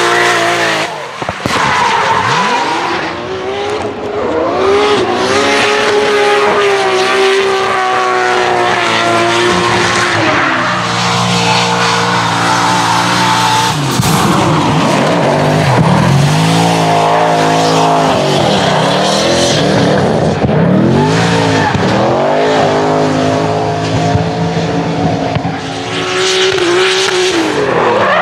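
Drift cars sliding at full throttle, first a Subaru Impreza and then BMWs. The engines rev high and drop back over and over as the throttle is worked, over a continuous hiss and squeal of rear tyres spinning and smoking.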